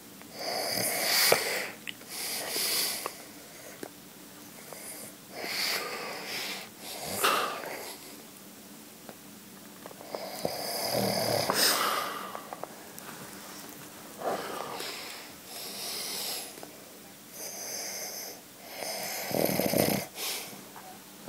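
A man snoring in his sleep: a snore every two to four seconds, with quieter breathing in the gaps.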